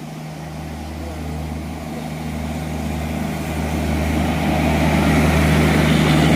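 Indian Railways WAP-4 electric locomotive and Garib Rath Express coaches approaching and passing close by: a steady low electric hum under a wheel-on-rail rumble that keeps growing louder.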